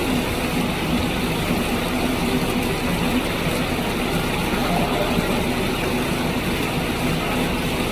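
Steady rushing noise with a low hum underneath, even in level throughout.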